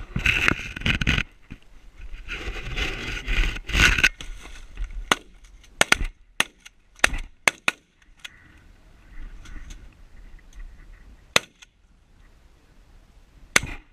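Shotgun volley: a rapid string of about eight shots from several hunters' guns between about five and eight seconds in, then two single shots later. Two loud, noisy stretches come in the first four seconds, before the shooting.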